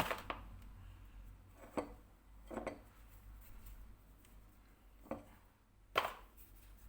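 A knife cutting rolled-out dough on a board: about five sharp knocks at uneven intervals as the blade hits the board.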